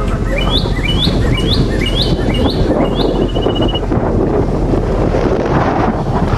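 Strong wind buffeting the microphone throughout, with a bird chirping in quick repeated notes, about three a second, for the first three seconds and ending in a brief trill.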